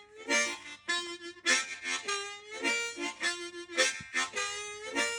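Harmonica music: a run of short, breathy chords and single notes in a steady rhythm.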